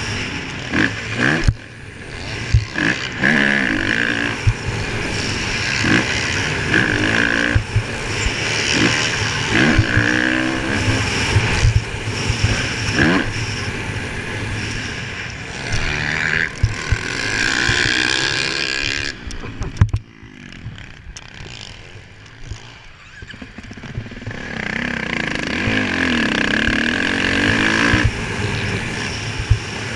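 Motocross bike's engine heard from on board, revving hard and rising and falling in pitch through gear changes and throttle on and off, with short knocks from the bike over the rough track. About twenty seconds in it drops to a quieter, lower off-throttle run for a few seconds, then pulls hard again.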